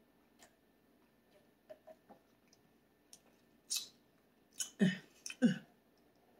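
A person sipping and swallowing iced coffee from a plastic cup, with small mouth clicks. A sharp breath comes a little past halfway, then two short voiced throat sounds follow close together near the end.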